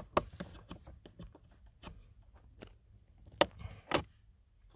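Needle-nose pliers working the wire end of a car heater control cable: scattered light clicks and small taps of metal on metal and plastic, with two sharper clicks about three and a half and four seconds in.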